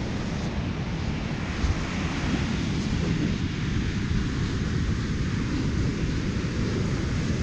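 Wind buffeting a GoPro's microphone, a steady rough rumble.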